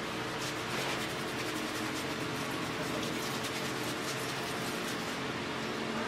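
A run of rapid, soft scratchy rustles from hands rubbing during a massage, starting about half a second in and stopping about a second before the end, over the steady hum of a fan.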